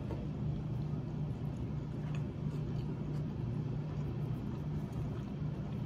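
Steady low hum of background noise, with a few faint soft clicks.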